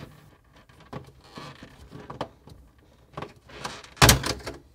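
Plastic rattling and small clicks as fingers work the black waterline retaining clip on a refrigerator's triple water valve, then one loud sharp plastic snap about four seconds in as the clip's locking tabs let go.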